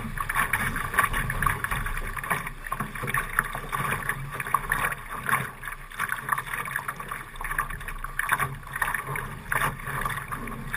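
Water rushing and splashing along a Laser dinghy's hull as it sails through choppy water. The sound is an uneven, irregular rush that surges and slaps.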